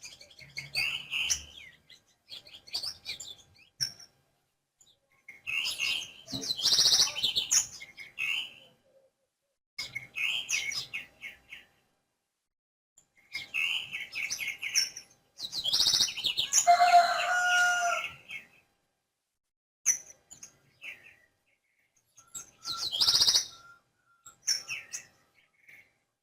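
Small songbirds such as house sparrows chirping in short, busy bursts, one to three seconds each, with near-silent pauses between them; the loudest burst, about two thirds of the way through, adds a few lower held notes.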